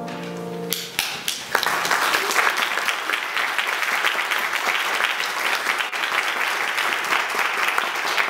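The last French horn and piano note dies away, and about a second in an audience starts applauding, a steady patter of many hands clapping.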